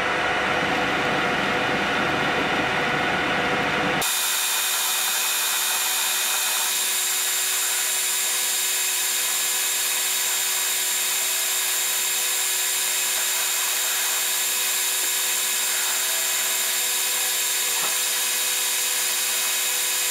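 Metal lathe turning a bar, taking a 1 mm depth-of-cut pass to reduce its diameter: a steady machining whir with several high, steady whining tones. About four seconds in the sound changes abruptly and the low rumble drops away.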